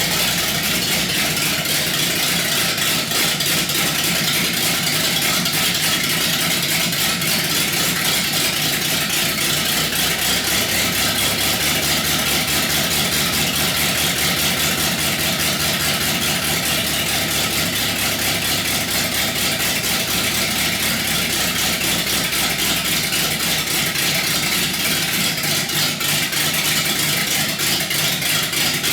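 Chrysler 318 small-block V8 on an engine test stand, exhaust straight out of open manifolds, idling steadily with the uneven lope of a big-cam, high-compression build.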